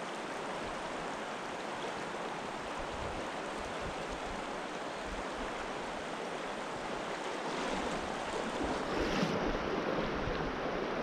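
Shallow river current rushing over a stony riffle, a steady hiss of moving water that grows a little louder for the last few seconds.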